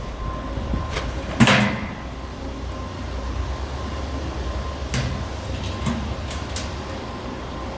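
Corten steel planter panels and bolts being handled during assembly: a sharp metallic knock with a short ring about a second and a half in, then lighter knocks and clicks, over a steady low hum.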